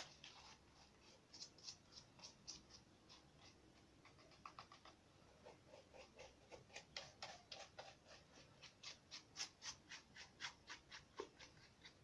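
Faint brush strokes of dry-brushing paint onto a paper model boat: quick, short scratchy ticks several a second, with brief pauses between runs of strokes.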